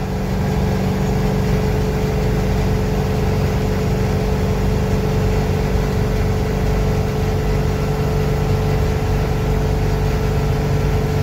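Inside the cab of a 1988 International S1654 tow truck cruising at highway speed, its 7.3 IDI V8 diesel running steadily under load while towing a pickup, with road noise and a steady hum that does not change.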